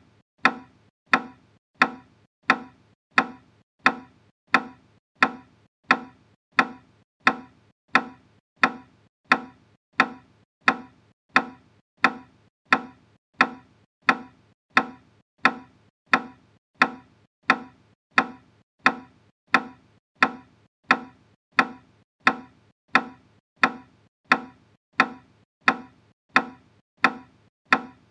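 A steady, evenly spaced percussive knocking beat, about three knocks every two seconds, each a short, sharp, slightly pitched knock that dies away quickly. It is the pacing beat for double-speed kapalbhati: each knock marks one forceful exhalation.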